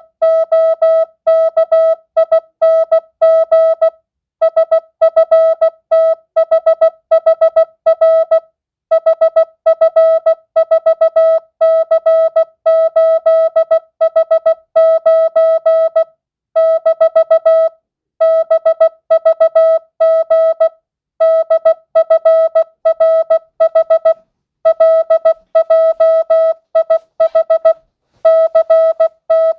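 Morse code (CW) sent as a single steady-pitched beep keyed on and off in dots and dashes at 16 words per minute, non-Farnsworth. The letters form words of mixed length, separated by short pauses every few seconds.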